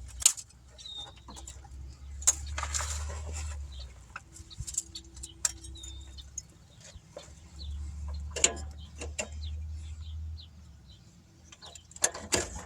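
Scattered clicks, knocks and small metal clinks of hand work refitting the parking-brake cable and its retaining clip, with a few short high chirps among them.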